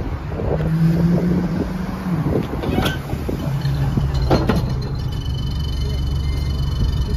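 Alexander Dennis Enviro200 single-decker bus's diesel engine idling at the stop, a steady low hum heard from inside by the front doors; its pitch drops a little about halfway through. A few sharp knocks sound over it.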